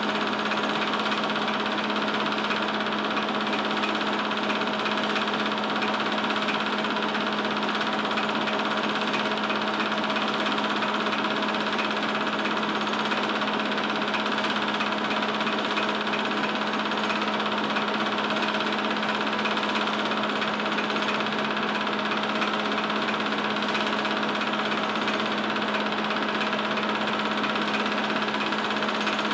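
Film projector running steadily: a fast, even mechanical clatter over a constant hum.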